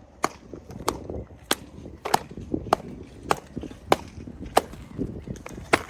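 Texture stamps being tamped into fresh concrete: sharp slaps in a steady rhythm, about one every 0.6 seconds.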